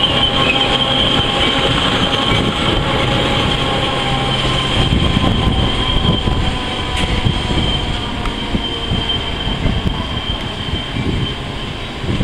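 Metra commuter train of bilevel gallery cars rolling past on the rails, a low rumble with knocks under a steady high-pitched whine from the wheels. It grows quieter near the end as the last car draws away.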